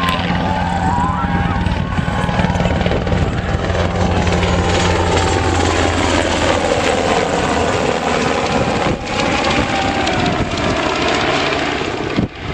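Army UH-60 Black Hawk helicopter flying low overhead after take-off: loud, steady rotor and turbine noise whose pitch dips and rises again as it passes overhead a little past the middle, then it draws away.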